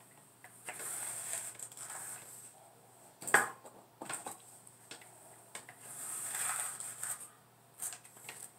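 Quiet hair-styling handling sounds: hair rustling as it is drawn through a flat iron and round brush, with a few small clicks and knocks, the sharpest about three seconds in.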